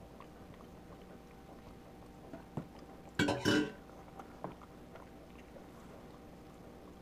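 Java macaque handling and chewing food from a dish, with faint scattered clicks. About three seconds in comes a short, louder double burst of breathy noise.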